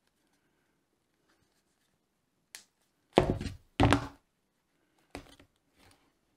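Hand snap-setting pliers clamping a brass stud into a leather cuff: two heavy metal clunks a little over half a second apart, a little past halfway through, with lighter taps and handling around them.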